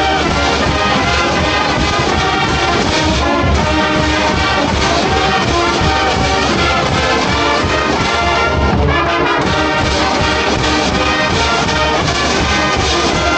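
A marching band's brass section playing loudly at close range, with trumpets and trombones prominent.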